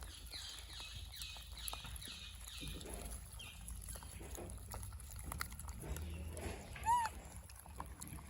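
Animal calls: a quick run of about seven short, high calls, each falling in pitch, then a single louder call about seven seconds in.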